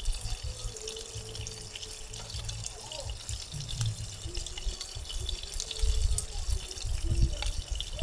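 Pork belly sizzling and crackling on a grill pan, a steady hiss full of tiny pops, with a low rumble beneath that swells about six seconds in.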